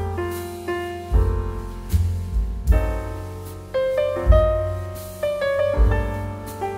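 Background piano music: a melody over deep bass notes struck every second or so, each note ringing and fading.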